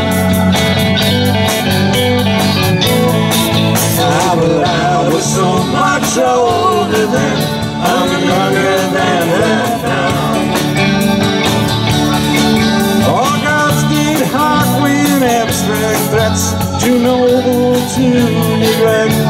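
Live rock band playing an instrumental break between verses: a lead guitar line with bending notes over drums, bass and keyboard.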